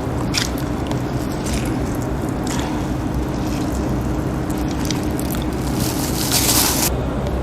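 Salted, pounded eggplant being squeezed by hand to wring out its water, with soft wet squishing in scattered strokes. A louder rustling noise comes about six seconds in and lasts about a second.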